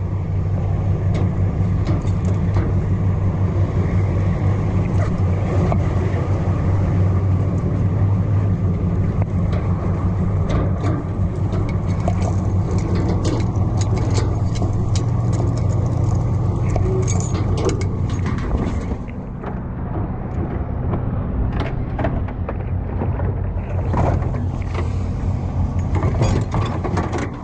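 A vehicle engine idling steadily, with scattered clinks and rattles over it. The sound drops somewhat about two-thirds of the way through.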